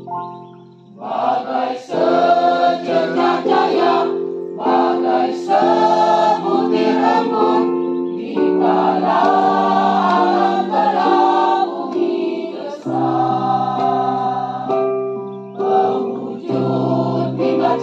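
Mixed choir singing in unison over steady held keyboard chords. The keyboard plays alone for the first second, then the voices come in and sing phrase after phrase.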